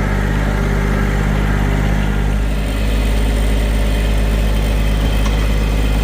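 John Deere tractor engine running steadily; about two and a half seconds in it dips briefly, then picks up and runs a little stronger.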